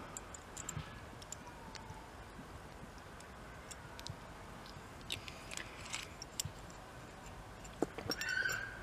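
Faint scattered clicks and light handling noises as alcohol fuel is added from a small bottle to a DIY alcohol stove's burner under its metal pot stand, with a slightly louder clatter near the end.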